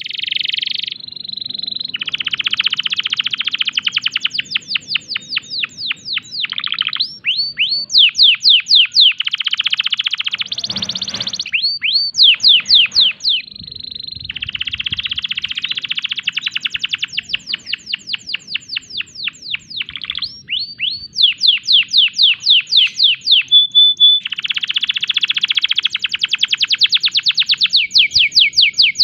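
Domestic canary in breeding condition singing a long song of rolling trills: fast runs of repeated down-swept notes alternating with buzzy rolls, with a brief steady whistle about three-quarters of the way through.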